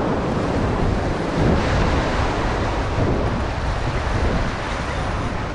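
Steady wind noise on the microphone over the wash of surf against a saltwater jetty.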